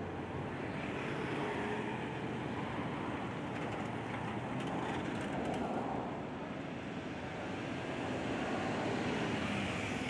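Steady rumble of distant road traffic that swells twice.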